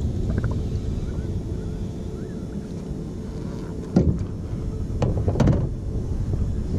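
A steady low rumble, with a sharp knock about four seconds in and two more a second or so later.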